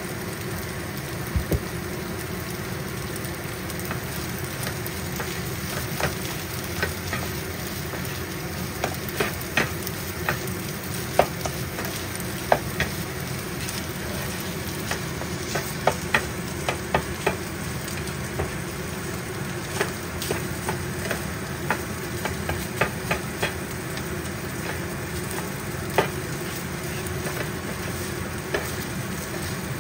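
Fried rice with egg, shrimp and diced pork sizzling in a nonstick frying pan while it is stirred and turned with a plastic spatula. Irregular clicks and scrapes from the spatula against the pan are heard throughout the sizzle.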